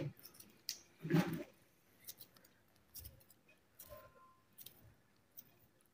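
Small kitchen knife cutting tomatoes held in the hand over a plate: faint, scattered clicks and snicks as the blade goes through the fruit, with one brief louder sound about a second in.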